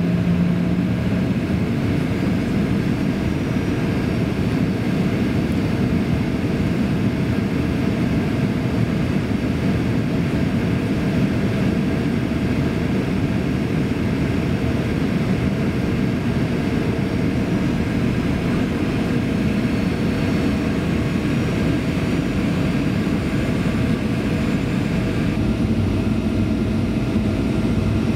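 Steady cabin roar inside a Boeing 737-800 descending on approach to land: engine and airflow noise with a few faint steady tones underneath. The tone shifts slightly near the end.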